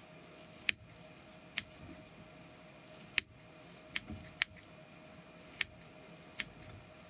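Small fly-tying scissors snipping through the spun reindeer-hair body of a bomber fly, about seven sharp, separate snips at an uneven pace as the hair is trimmed to shape.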